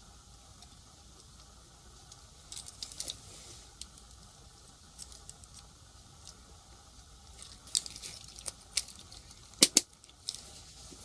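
Scattered key presses on a Topre electrostatic-capacitive keyboard with transplanted Cherry-MX-compatible sliders: short, irregular clicks, some in small clusters, with a sharp double click near the end.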